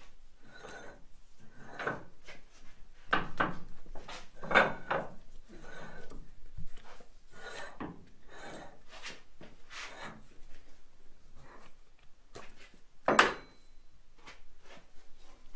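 A heavy lathe chuck being eased onto the lathe spindle: irregular metal scrapes, rubs and clunks as it is worked on, with one louder clank near the end.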